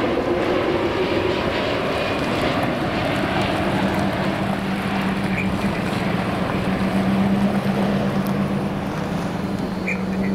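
Jet engines of an American Airlines Boeing 787-8 Dreamliner on final approach with its gear down, passing just overhead: a loud, steady roar. A low steady hum comes in a few seconds in and holds as the airliner moves away.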